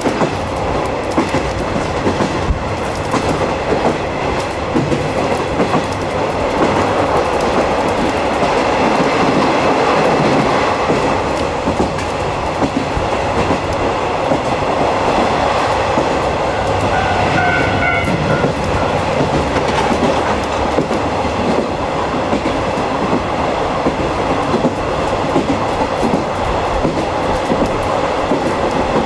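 Japanese 50-series passenger coach running at speed on jointed track: a steady rumble of wheels on rail with a running clickety-clack of rail joints. A brief high ringing tone comes through about two-thirds of the way in.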